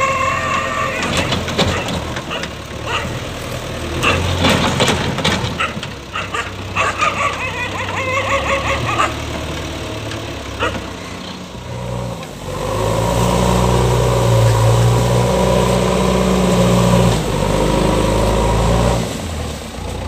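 Diesel engine of a JCB 3DX backhoe loader running as the machine moves about. About twelve seconds in, the engine gets louder and steadier, working under load as the front loader bucket pushes into a pile of soil.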